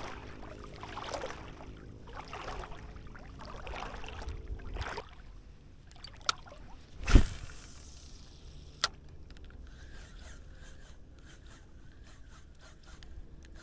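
Water sloshing and swishing about once a second as an angler wades shallow saltwater flats, over a low steady hum. About seven seconds in comes a loud thump between two sharp clicks, then a quick run of light ticks as a spinning reel is cranked to retrieve line.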